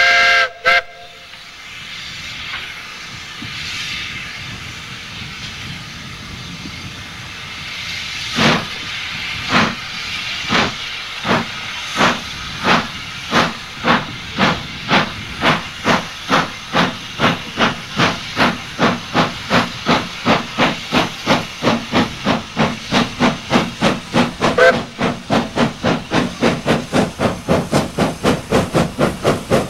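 J94 'Austerity' 0-6-0 saddle-tank steam locomotive starting a heavy train up a 1-in-50 gradient. A whistle toot at the very start and a spell of steam hissing, then hard exhaust chuffs from the chimney that begin about one a second and quicken steadily to about three a second as the engine works the load. A brief whistle toot comes later in the climb.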